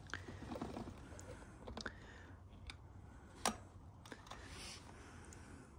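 Faint clicks and taps of a torque wrench on bicycle spoke nipples as the spokes are brought up to torque, with one sharper click about three and a half seconds in.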